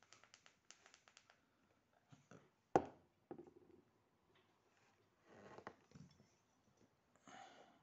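Quiet handling at a table: a run of faint clicks, then one sharp knock about three seconds in as a vape pen is set down on the tabletop, followed by a few soft rustling noises.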